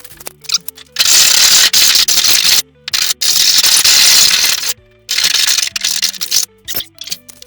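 A power tool cutting the sheet-steel back of a toolbox drawer, in three loud, harsh bursts of about a second and a half each with short pauses between, over faint background music.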